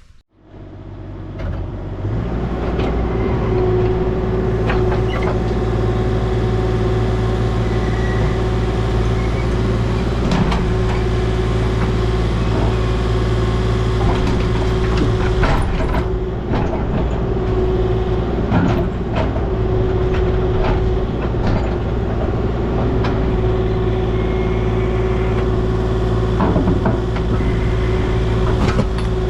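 Heavy equipment engine running steadily at a constant speed, with a steady whine over a low drone and a few sharp metal knocks and clanks scattered through it.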